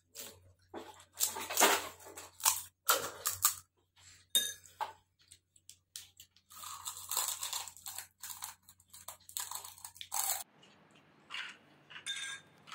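Crisp panipuri (gupchup) shells cracked open with the fingers and crunched while eating: a quick, irregular run of sharp crunches that thins out near the end.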